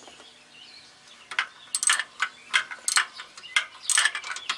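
Ratchet wrench clicking in short runs as it turns a heavy truck's clutch adjusting bolt, starting about a second in.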